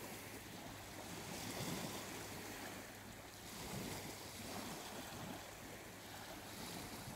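Faint wash of gentle sea waves, an even hiss that swells and eases a little.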